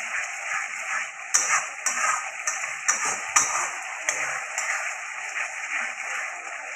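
Spatula stirring a watery onion-and-spice masala in an aluminium kadai over a steady sizzling hiss, knocking and scraping against the pan about twice a second from about one to five seconds in.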